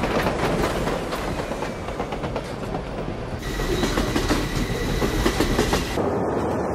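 Subway train running along the track heard from inside the car: a dense, steady rattling clatter, with a faint steady whine joining about halfway through.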